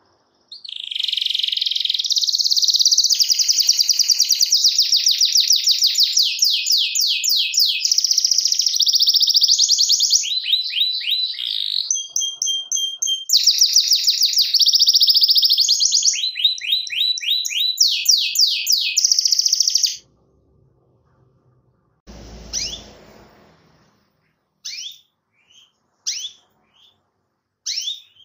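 Canary singing a long, fast rolling song of rapid trills, the chirping 'cuit cuit' challenge song used to set other canaries singing, broken near the middle by a short steady whistle. After about twenty seconds the song stops. A brief thump follows, then only a few short chirps.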